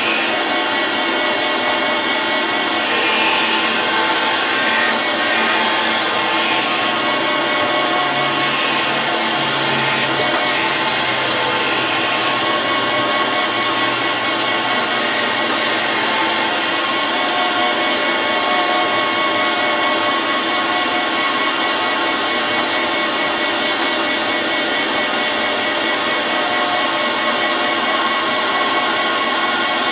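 Surface grinder running, its grinding wheel passing over a wood chipper blade to grind it flat: a steady hiss with a faint whine.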